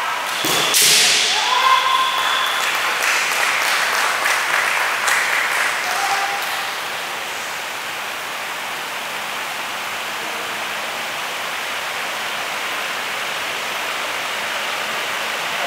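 Kendo sparring: a kiai shout with a sharp bamboo shinai strike about a second in, then a few seconds of scattered shinai clacks and knocks. After about six seconds only a steady hiss remains.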